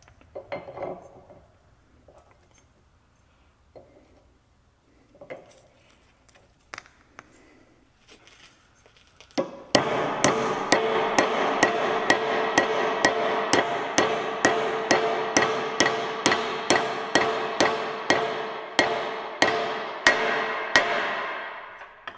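Small sledgehammer tapping a new U-joint bearing cap into the steel yoke of a front axle shaft, about two blows a second, the steel ringing on between strikes. The hammering starts about ten seconds in, after a few faint clicks of parts being handled.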